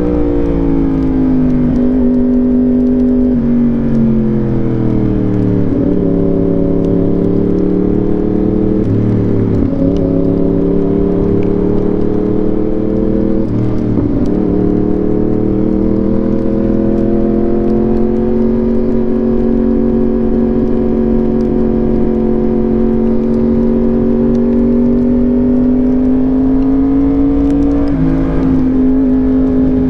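Yamaha R1 inline-four engine running through an SC-Project exhaust while riding at speed, with wind rush underneath. The note drops and steps in pitch with a few short breaks at gear changes, holds fairly steady while rising slowly, then steps up again near the end.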